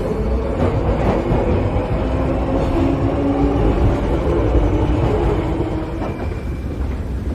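A vehicle running: a steady low rumble with several whining tones that shift in pitch.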